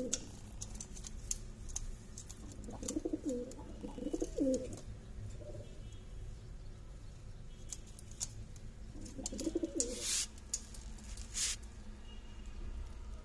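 Brooding domestic pigeon giving low coos: a few short calls in the first five seconds and another group later on. A couple of brief rustling scrapes follow as the nest is handled.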